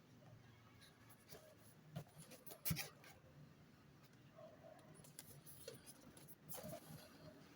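Faint handling of cardboard packaging: quiet rustling and scraping with a few light taps, the loudest knock about two and a half seconds in and a longer rustle near the end.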